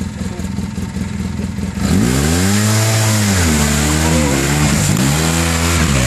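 Polaris RZR 4 side-by-side engine running steadily under load, then about two seconds in revving hard, its pitch rising and dropping back about three times as the machine powers up out of a mudhole.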